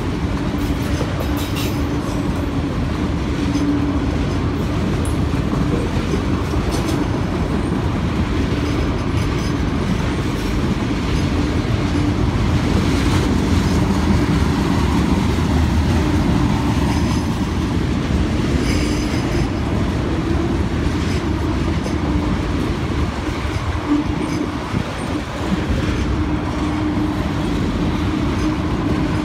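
CSX freight train of autorack cars rolling steadily past a grade crossing, its wheels clattering over the rail joints.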